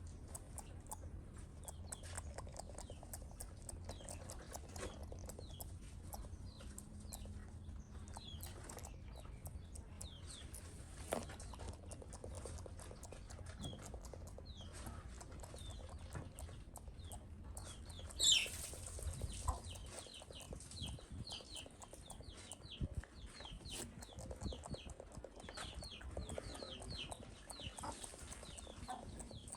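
Pet monkey grooming a cat with its mouth: soft lip-smacking and picking clicks through the fur, with runs of short high chirps and one loud sharp squeal about 18 seconds in.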